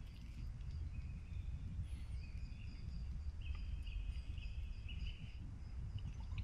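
Quiet forest ambience: a steady low rumble with faint, high bird calls and chirps scattered through it.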